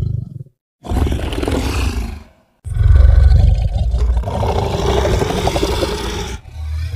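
Custom-made monster roar sound effects for a giant crocodile creature: separate deep roars with short silences between them. A short roar comes about a second in, then a long one of about three and a half seconds with a wavering pitch, and a brief growl near the end.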